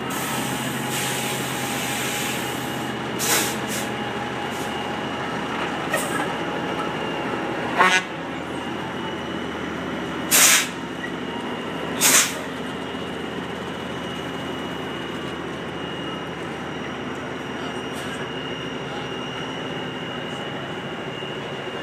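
Semi-truck tractor's diesel engine running steadily as it manoeuvres at low speed, with four short, loud hisses of air brakes spaced a few seconds apart in the first half.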